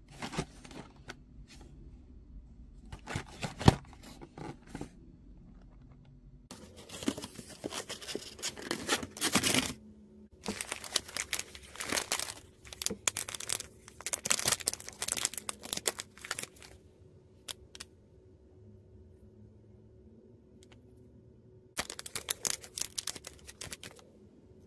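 Shiny printed plastic wrapper of a blind-box eraser being torn open and crinkled by hand. It comes in several bouts of tearing and rustling, with quiet pauses between them, and there is one sharp click a few seconds in.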